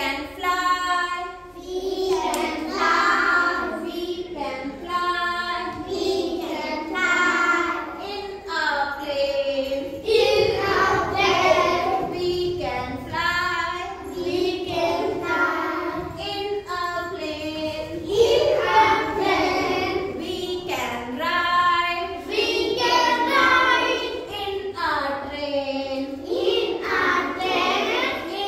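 Group of young children singing an action song in unison, led by a woman's voice, in steady sung phrases.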